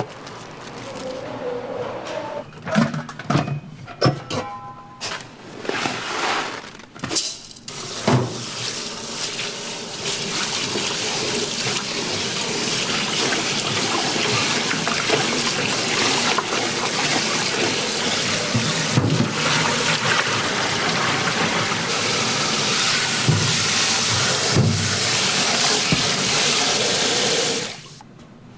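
Kitchen utensils clattering and knocking, then water running steadily from a tap, which stops abruptly near the end.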